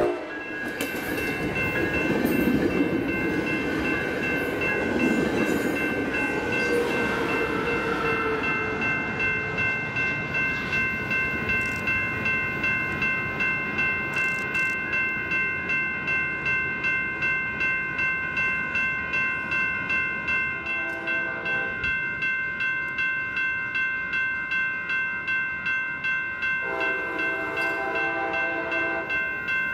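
Railroad grade-crossing bell ringing steadily at about two strokes a second. A passing train rumbles over the first several seconds, and a train horn sounds twice: a short blast about twenty seconds in and a longer one near the end.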